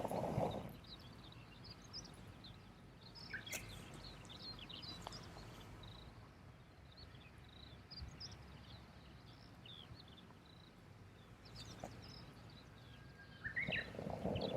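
Small birds chirping now and then over quiet outdoor background, with a few sharp clicks. A louder rustling, handling noise at the start, and again near the end.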